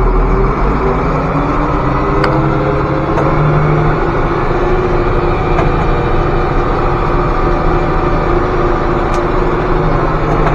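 Tractor diesel engine speeding up to pull a loaded grain wagon away: its pitch rises over the first few seconds, then holds steady as it drives on.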